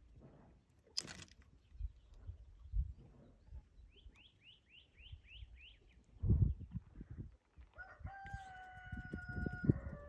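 A rooster crowing near the end, one long held call that drops in pitch as it finishes. Earlier, a small bird gives a quick run of about seven chirps, over irregular low rumbling noise.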